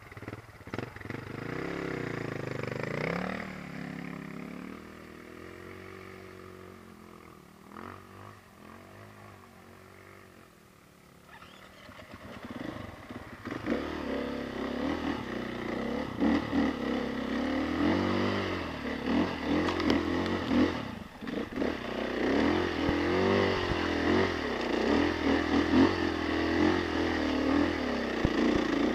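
Dirt bike engine being ridden off-road, revving up and down. It runs quieter and lower through the middle, then works hard for the second half with the pitch rising and falling constantly under load on a steep, muddy climb.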